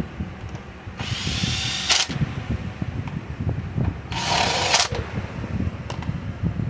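Makita DPC7321 gas concrete saw's recoil starter pulled twice, about 1 s and 4 s in, each pull a rasping whir of about a second as the cord spins the engine over. The engine does not start.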